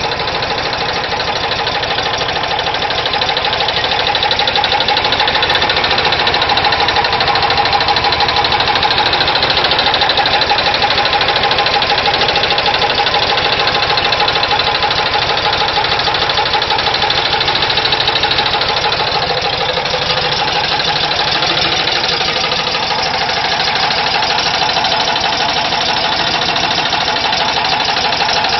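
Volkswagen Type 4 air-cooled flat-four engine running with a fast, steady knocking, the engine knock that the owner is recording.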